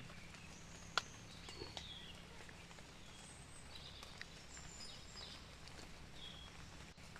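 Faint outdoor ambience: scattered short bird chirps and calls, with a sharp click about a second in and a few softer ones, over a steady low rumble.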